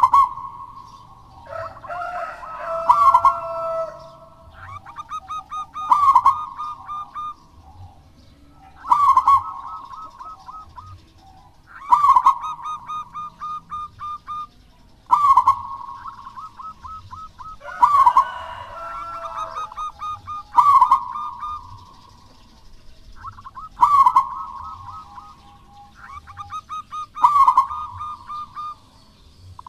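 Zebra dove (perkutut) singing: the same cooing phrase, a quick run of short notes ending in a strong swooping coo, repeated about every three seconds. Twice, near the start and around the middle, a second lower call overlaps the song.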